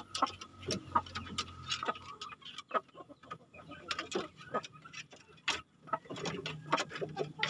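Irregular sharp clicks and taps of chickens' claws and beaks on the wooden slats of a plank coop as a young rooster moves about.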